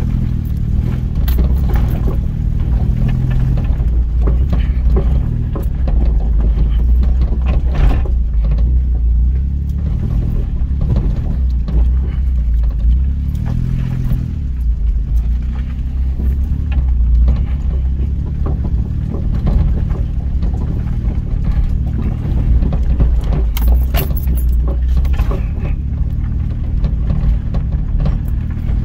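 Car engine running at low speed, heard from inside the cabin as a steady low rumble, with scattered knocks and rattles as the vehicle bumps over a rough dirt track.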